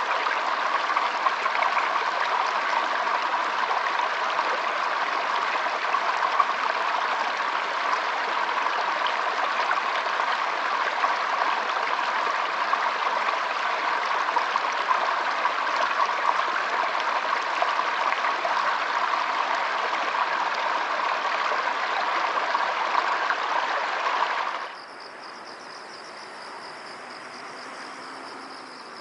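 Steady rush of flowing stream water, cutting off abruptly near the end to a much quieter chorus of crickets chirping in a steady high trill.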